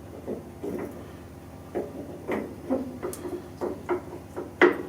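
Irregular clunks and clicks of a metal lathe parting tool being handled and set up on the lathe, about ten short knocks at uneven spacing, the loudest near the end, over a faint steady hum.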